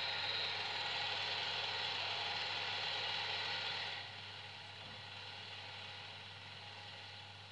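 Steady hiss from projected film-clip playback through the sound system, over a low electrical hum. The hiss drops sharply about four seconds in, when the projected clip changes, and then keeps fading.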